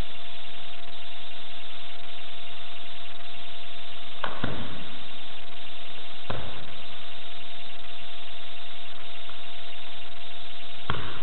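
Steady hiss with a faint steady tone, broken by three sudden knocks from a solo bo staff kata: about four seconds in, two seconds after that, and near the end.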